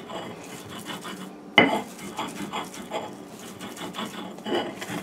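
Dried shrimp being ground on a stone sil: repeated gritty stone-on-stone rubbing strokes, about two a second, with one sharp knock about one and a half seconds in.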